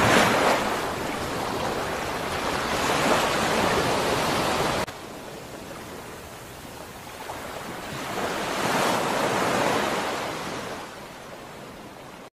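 Ocean surf: waves washing in, a steady rushing wash that swells and fades, drops abruptly about five seconds in, and swells again before fading out near the end.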